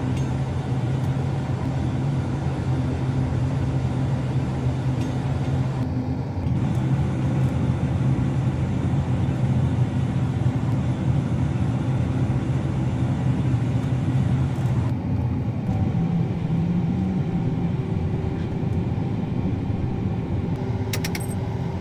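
Engine of a large farm machine running steadily, a low even hum with a slight rise in pitch about fifteen seconds in.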